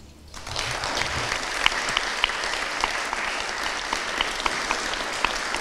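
Applause from the audience and panel: many hands clapping at a steady level, starting a moment in, after a brief lull.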